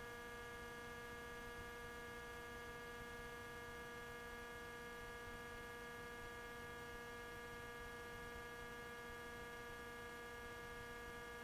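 Faint, steady electrical hum on the audio line between radio transmissions, holding several steady pitches with no change.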